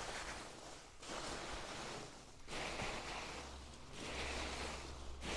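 Hands rummaging through loose biodegradable packing peanuts in a cardboard box: rustling and shuffling in several bouts with brief pauses between them.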